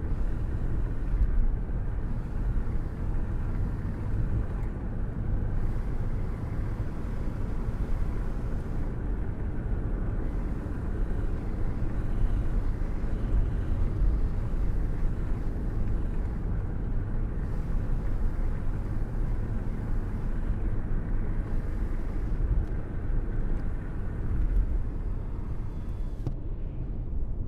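Wind rushing and buffeting at an open window of a car cruising along, over a low steady rumble of road and engine noise. The wind wavers in loudness.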